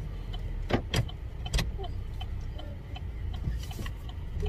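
Road noise inside a moving car's cabin at highway speed: a steady low rumble with a faint regular ticking about three to four times a second. A few sharp knocks come at about one second in and again shortly after.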